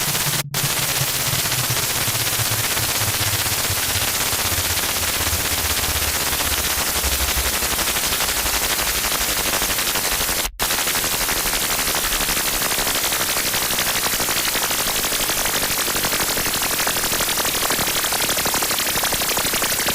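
Harsh noise: loud, dense distorted static with a rapid crackle, over a low drone that sinks in pitch during the first several seconds. It cuts out for an instant about half a second in and again about ten seconds in.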